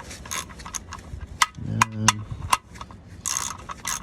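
3/8-inch drive ratchet clicking in short strokes as the oil drain plug is tightened back in, with a faster run of clicks near the end.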